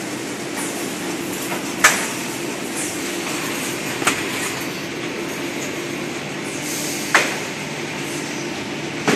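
Automatic corrugated-cardboard bundling machines and roller conveyors running: a steady mechanical hum, with a sharp clack every two to three seconds, four in all.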